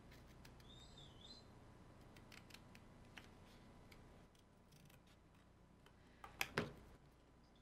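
Scissors snipping through thin cereal-box cardboard: faint scattered cuts, with two louder snips about six and a half seconds in.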